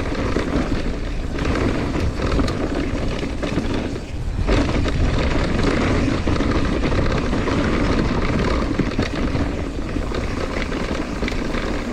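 Mountain bike descending a dusty dirt trail: steady wind rush on the microphone mixed with tyre roll and rattling from the bike, easing briefly about four seconds in.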